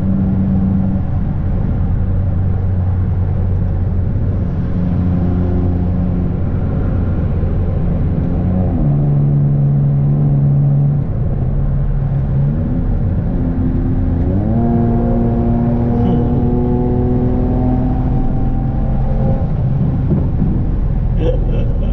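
Car engine running under way, its note dropping about nine seconds in, then rising sharply about fourteen and a half seconds in as the car accelerates, and holding steady after.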